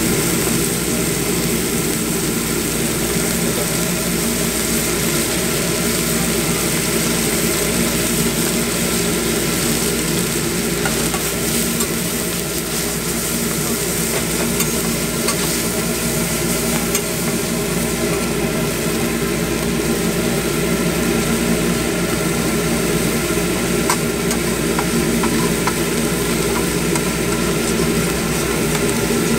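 Sliced meat and eggs sizzling on a hot steel flat-top griddle, with a metal spatula scraping and tapping against the plate, over a steady mechanical hum.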